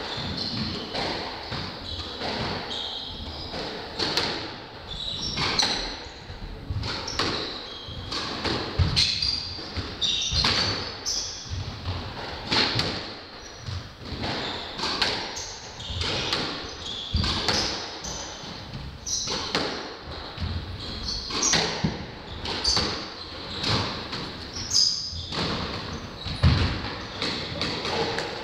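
Squash rally on a glass-backed court: the ball cracking off rackets and walls in quick succession, with short squeaks of shoes on the wooden floor. Near the end comes a heavy thud as a player dives and lands on the floor.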